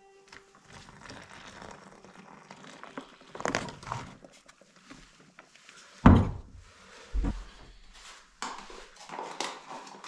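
Scattered knocks and thuds in a small room, with one heavy thud about six seconds in and a quicker run of knocks near the end.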